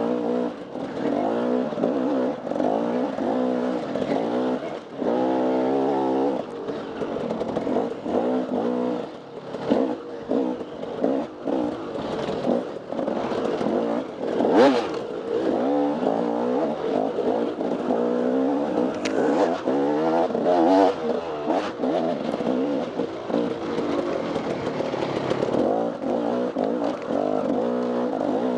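Dirt bike engine revving up and down again and again as it is ridden hard, with knocks and clatter over rough ground. A sharp knock about halfway through is the loudest moment.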